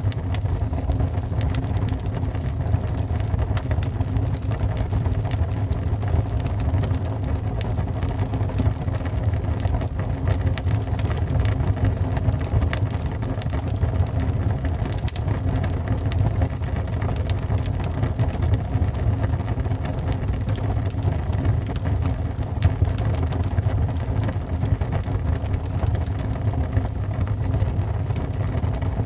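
Wood fire burning in a fireplace: a steady low rumble with many small crackles and pops scattered through it.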